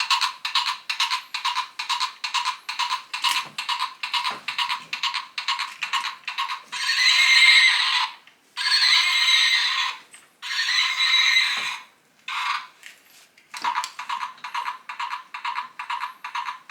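The PonyCycle's battery-powered sound effects box playing recorded horse sounds through its small speaker, thin and without bass: a run of hoofbeats about three a second, then three long whinnies about seven seconds in, then the hoofbeats again.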